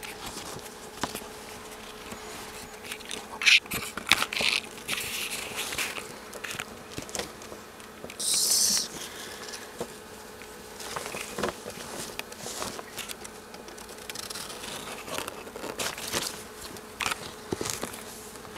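A bag rustling and crinkling close to the microphone in scattered bursts, loudest around four seconds in and again about eight seconds in, with small clicks and knocks throughout. A faint steady hum lies underneath.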